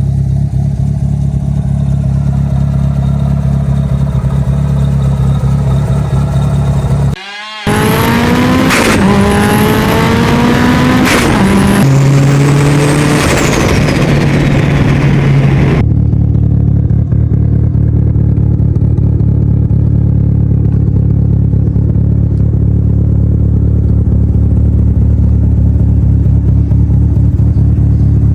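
Turbocharged 4G63 four-cylinder of a Mitsubishi Lancer Evolution VIII, blow-off valve deleted, heard from inside the car. It runs steadily, then a hard acceleration of about eight seconds brings rising engine pitch and a rising turbo whistle. The acceleration stops abruptly, and the engine settles back to steady running.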